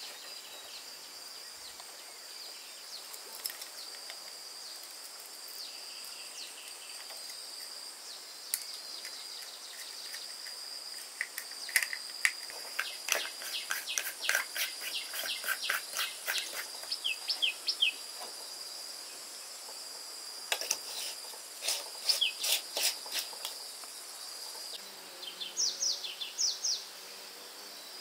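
Outdoor ambience of insects buzzing steadily, with runs of rapid clicking around the middle and short bird chirps near the end.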